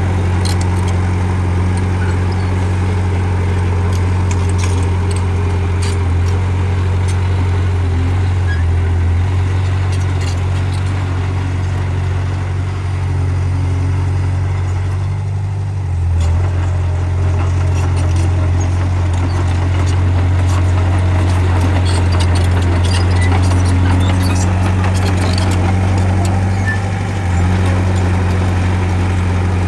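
Bulldozer's diesel engine running steadily with a deep hum. Its note drops and shifts a few times, with a brief dip about halfway through, and faint clicks and clanks sound over it.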